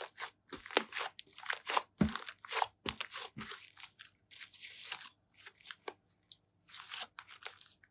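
Slime mixed with cream being squeezed and kneaded by hand, giving an irregular run of sticky crackles and pops, several a second.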